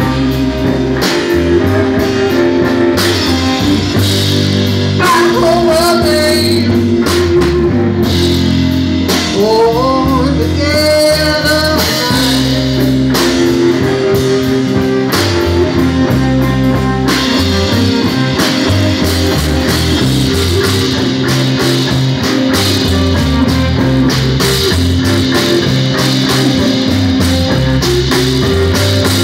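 Live blues band playing: electric guitars, electric bass and drum kit, with a lead line gliding in pitch in the first half.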